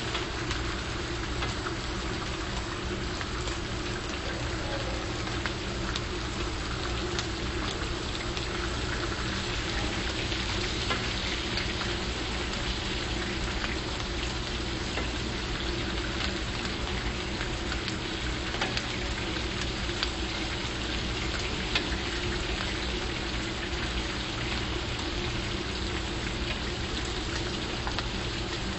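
Ribeye steak frying in foaming butter with garlic and thyme: steady sizzling with small scattered crackles as the hot butter is spooned over the steak.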